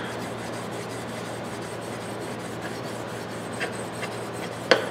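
Fine 0000 steel wool rubbed back and forth along a blackened steel plier handle, a steady scratchy rubbing. A short click near the end.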